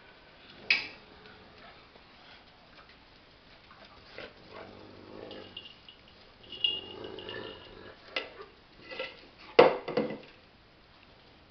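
A dog bowl knocking and clattering as two dogs tug and jostle over it with their mouths. There is a sharp knock about a second in, softer scuffling in the middle, and a quick run of knocks near the end.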